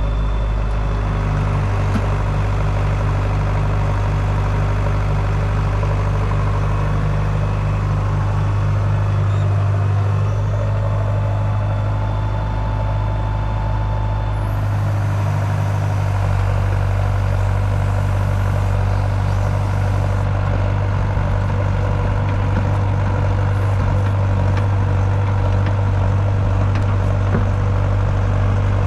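Excavator's diesel engine idling steadily with a constant low hum.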